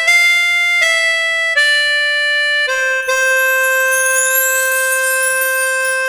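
Instrumental dance music: a slow melody of held, reedy notes that settles about halfway through on one long held note, with high fluttering sounds above it.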